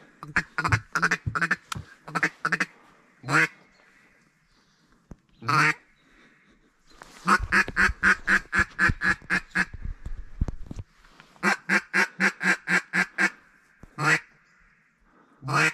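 Duck quacking in rapid runs of about four to five quacks a second, with a few single quacks between the runs. The longest run comes in the middle, about sixteen quacks long.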